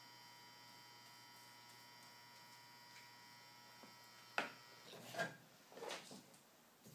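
Faint steady electrical hum that cuts off with a sharp click about four seconds in, followed by a few soft short scuffing sounds.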